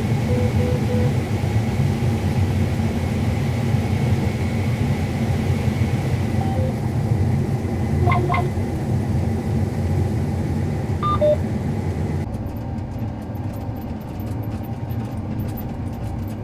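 Heavy farm machinery engine running steadily with a low rumble, likely a combine harvester. A few short electronic beeps sound near the start, about 8 seconds in and about 11 seconds in.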